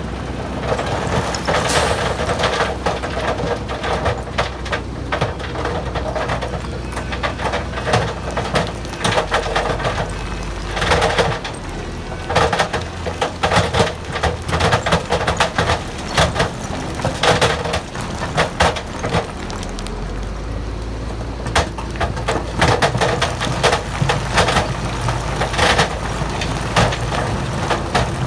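Heavy diesel earthmoving machinery running steadily while stones clatter, knock and crack against each other and against steel, in many short sharp bursts.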